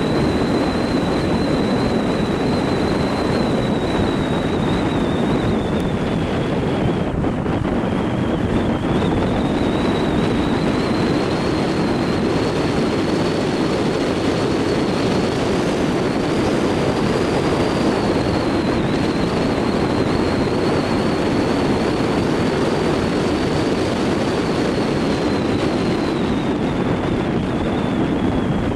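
Dacia Logan driving at steady speed: a steady rumble of road, engine and wind noise, with a thin high whine that drifts slowly up and down in pitch.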